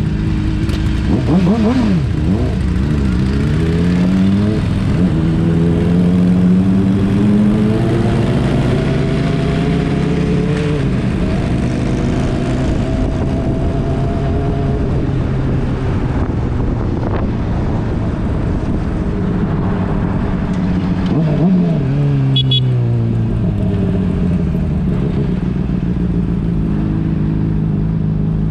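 Motorcycle engine running on the road. Its pitch dips and climbs in steps through gear changes in the first few seconds, rises slowly to about ten seconds in, then drops and holds steady. About twenty-one seconds in it briefly rises and falls again.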